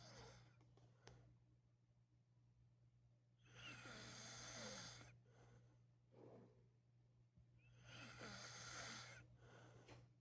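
A sleeping man snoring: two long snores about four seconds apart, with softer breaths between them, over a steady low hum.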